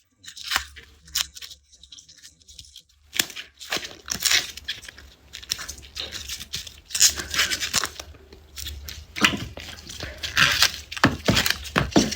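Papery garlic skins being peeled and torn from the cloves: a dense run of crisp crackling and tearing sounds over a low steady hum.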